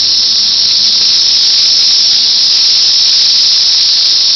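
Chorus of cicadas making a loud, unbroken high-pitched buzz. It is the calling of male cicadas trying to attract mates.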